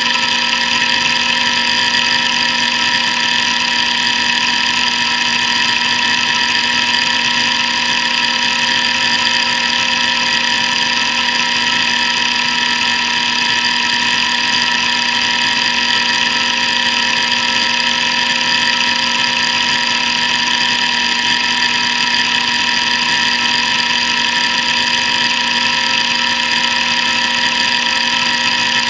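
Hitachi DK522C-10 hard drive running a seek test: the spindle motor's steady whine with a continuous rapid buzz of the heads seeking back and forth across the tracks.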